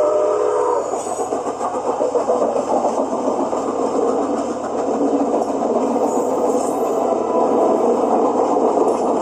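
HO-scale model train running along the track: a horn chord sounds and stops about a second in, then a steady rolling rumble.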